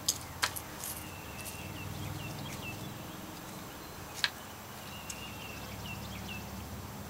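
Outdoor ambience: runs of short, high chirps over a low steady hum, with a few sharp clicks near the start and a louder one about four seconds in.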